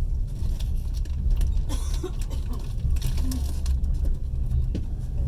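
Passenger train carriage in motion, heard from inside: a steady low rumble from the wheels and running gear, with irregular clicks and rattles.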